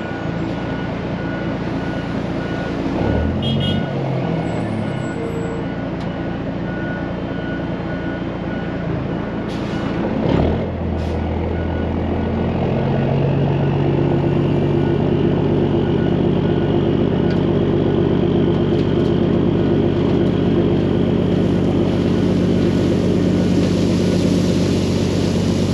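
Peterbilt 379 truck's diesel engine running, heard from inside the cab, with a reversing alarm beeping in the background for the first several seconds. About ten seconds in there is a short burst of noise, and then the engine picks up to a louder, steady drone under load.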